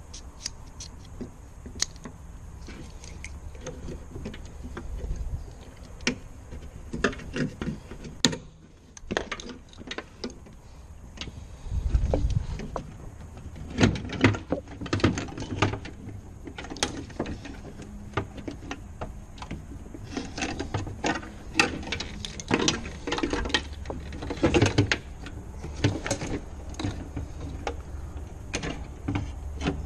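Irregular clicks, knocks and rattles of plastic wiring connectors and window-regulator parts being handled inside a car door, with a dull low thump about twelve seconds in.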